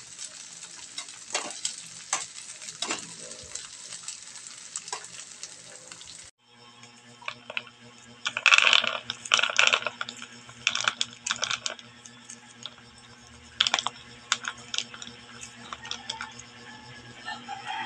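Peanuts frying in hot oil in a pan: a steady sizzle with clinks of a metal strainer-ladle stirring them. After a cut about six seconds in, the fried peanuts rattle and clatter as they are tipped from a wire-mesh strainer into a plastic bowl, loudest in clusters in the middle of that stretch.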